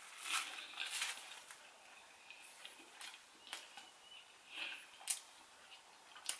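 Mouth sounds of eating curry and roti: soft chewing with scattered wet smacks and clicks, faint.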